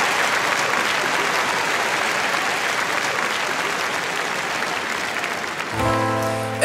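Audience applauding, slowly tapering off; near the end the backing music comes in with a held chord.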